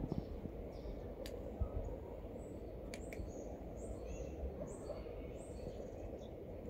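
A cat eating dry kibble, with a few sharp crunches, over a steady low outdoor background noise. Small birds chirp faintly and briefly in the background.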